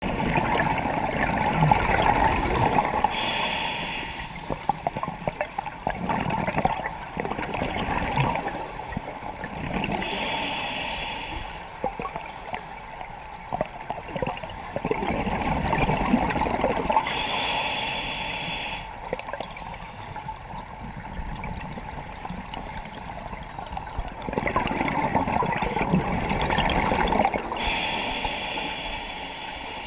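Scuba diver breathing through a regulator, heard underwater: a long rush of bubbles alternating with a short sharp hiss, four slow breaths about seven seconds apart.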